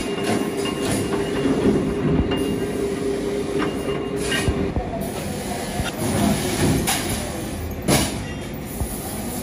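Metal workshop machinery running, a steady din with a hum that stops about halfway through, and a few sharp metallic clanks, the loudest about four and a half and eight seconds in.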